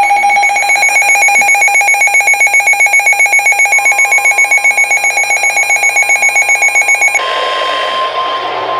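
A weather alert radio's alarm, a loud, rapidly pulsing electronic beep, sounding as an alert is received. Near the end the beeping stops, leaving the broadcast's steady warning tone of about 1 kHz over radio static.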